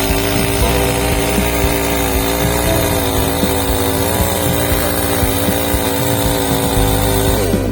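Ibell petrol chainsaw engine running steadily at high speed, its pitch wavering slightly and then dropping near the end as the throttle eases off.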